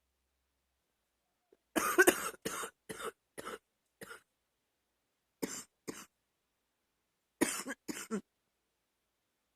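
A woman's wet, chesty cough, in three fits. About two seconds in comes a run of about five coughs, the first the loudest; two short coughs follow around five and a half seconds, and three more come near the end.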